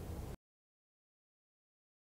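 Digital silence: the faint tail of the background music cuts off abruptly a fraction of a second in, leaving nothing.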